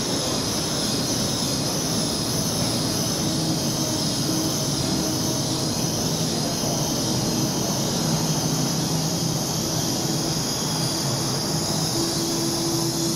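Laos–China Railway electric multiple-unit passenger train rolling into the station alongside the platform. It makes a steady rolling noise of wheels on rail, with a faint low hum.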